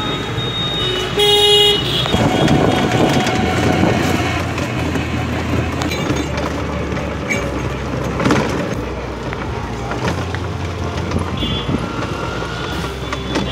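Street traffic heard from an open e-rickshaw riding along a busy road. A vehicle horn honks once, briefly, about a second in, and is the loudest sound. A fainter high beep comes near the end.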